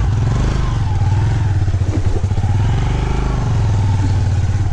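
Motorcycle engine running steadily, a low drone with rapid, even firing pulses.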